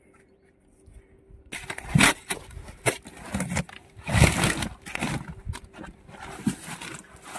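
A woven sack full of freshly caught tilapia rustling and thumping as it is handled and opened, starting about a second and a half in, with a few loud sharp bursts of handling noise.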